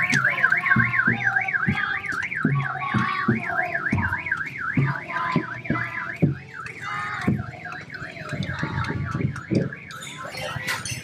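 Electronic car alarm siren warbling up and down about three times a second and fading near the end, over scattered hits on small children's marching drums.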